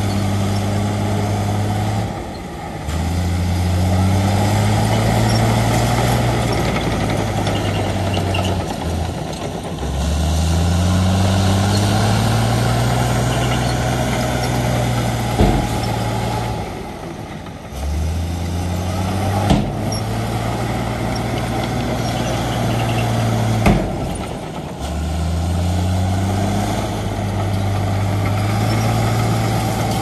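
Heavy diesel engine of earthmoving machinery running under load. Four times its note sags and then climbs back up as it cycles through the work. Three sharp clanks come in the second half.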